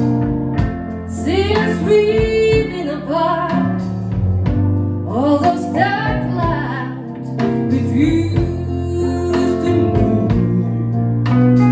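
Live blues band playing: held organ chords, keyboard, drums and electric guitar, with a bending, wavering lead line over them.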